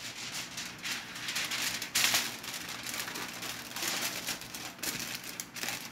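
Aluminium foil crinkling and rustling as it is folded and pressed tightly around a food parcel, in irregular crackles, loudest about two seconds in.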